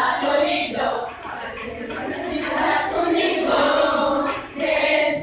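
A group of children's voices calling out together in unison, in several phrases with short breaks between them. The loudest phrase comes near the end.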